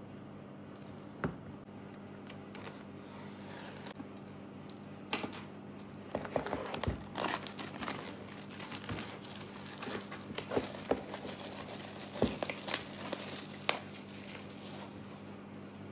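Clear plastic shrink wrap being peeled off a boxed CD album and crinkling in the hands, with a dense, irregular run of crackles from about five seconds in to about fourteen seconds. A single sharp tap comes about a second in.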